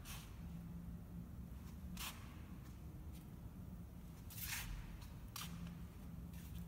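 Faint footsteps scuffing on a concrete floor, roughly one a second with a longer scuff about halfway through, over a low steady hum.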